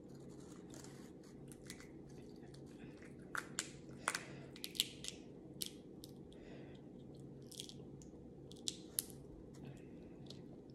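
Cooked crab leg shells being cracked and pulled apart by hand: scattered sharp cracks and snaps, loudest in a cluster around the middle and a pair near the end, over a faint steady hum.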